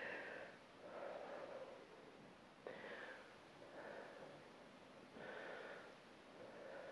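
A woman's faint, steady breathing: about six short breaths in and out, each under a second. This is her breathing through the effort of a side plank with clam leg lifts.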